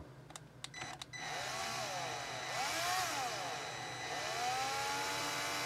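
Milwaukee M12 cordless drill spinning a motorcycle valve against its seat in the cylinder head to lap it in. After a few clicks, the drill starts about a second in; its motor whine rises and falls in pitch several times, then holds steady. Under it is the gritty, sanding scrub of lapping compound between the valve face and the seat.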